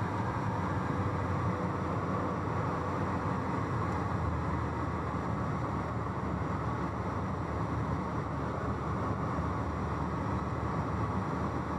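Cabin noise of a small Cessna in flight: the single piston engine and propeller drone steadily, with no change in power.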